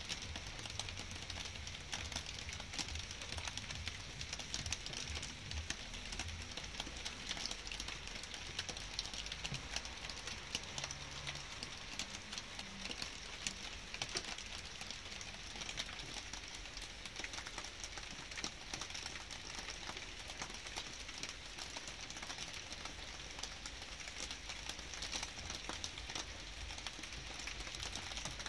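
Light rain falling steadily, with many close drops ticking.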